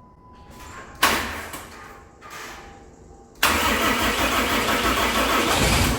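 A 6.7 Cummins diesel being cranked over in a hard-start attempt: a sudden loud burst about a second in, a shorter one a little later, then loud steady cranking from about halfway that stops near the end. The engine fires only briefly without catching, which the owner puts down to its timing being set too retarded for its large injectors.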